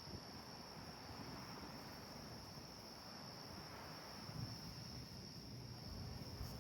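Steady high-pitched chorus of night insects, such as crickets, trilling without a break, over a faint low rumble.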